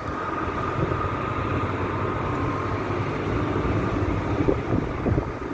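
Snow-clearing machinery working close by, a steady low engine rumble with a faint constant whine above it: a real racket.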